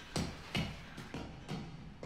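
Footsteps coming down steel stairs with metal-grate treads: hollow, ringing knocks about two a second.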